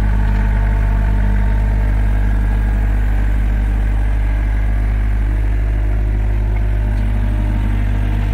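Hitachi EX60 mini excavator's diesel engine running steadily while its boom and bucket are worked.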